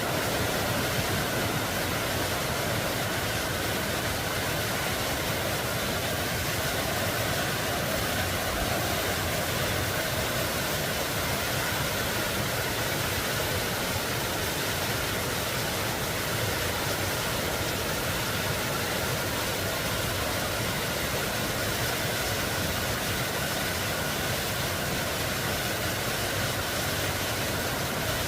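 Mountain valley stream rushing steadily over rocks, a constant even rush of water.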